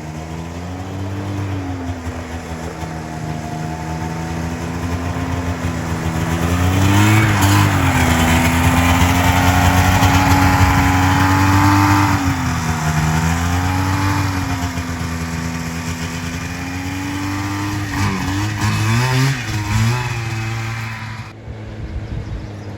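Yamaha SRV 540 two-stroke snowmobile engine powering a homemade kart, running and revving: the pitch climbs about a third of the way in, holds high for several seconds, then eases off, with a few quick blips of the throttle near the end.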